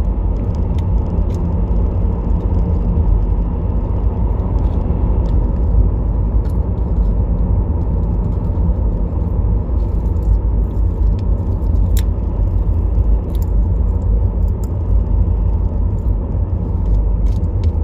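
Steady low rumble of road and engine noise inside a car's cabin while it drives, with a few faint small clicks, one sharper about twelve seconds in.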